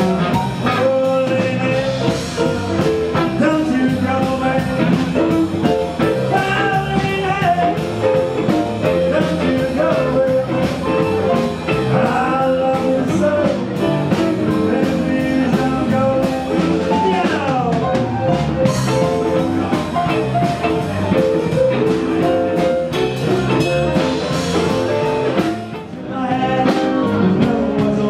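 Blues band playing live: electric guitar over a drum kit, with a short dip in loudness near the end.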